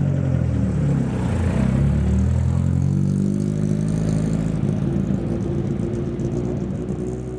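Datsun 1600 rally car pulling away on a dirt road, its engine revving up with a rising pitch, then holding steady and fading as the car drives off.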